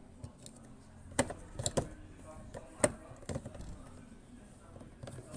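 Scattered sharp clicks and clinks of a screwdriver, screw and plastic door-handle parts as a new interior door handle is screwed into the car door, about half a dozen between one and three and a half seconds in.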